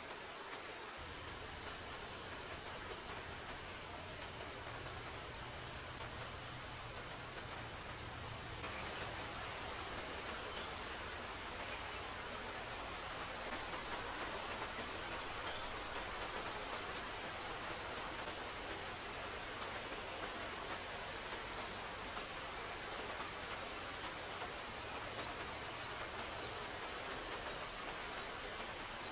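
Insects trilling steadily, a rapid pulsing high-pitched buzz over a steady hiss of forest ambience.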